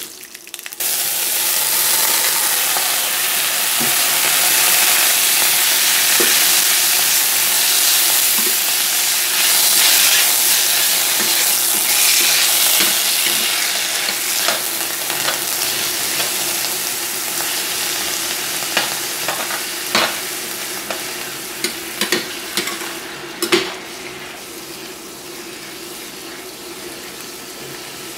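Chicken intestines hitting hot oil and garlic in a stainless steel pan: a loud frying sizzle starts suddenly about a second in and slowly dies down. In the second half a metal spatula scrapes and taps against the pan as it stirs.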